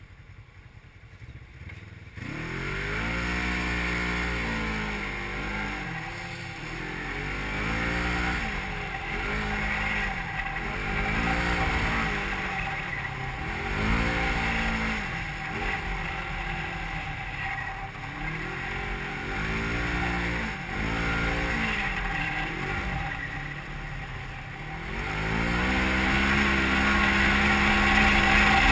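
Polaris RZR XP 1000's twin-cylinder engine revving up and down over and over, a rise and fall about every two seconds, heard from inside the open cab with wind rush. It is quieter for the first two seconds, then climbs to a steady high rev near the end.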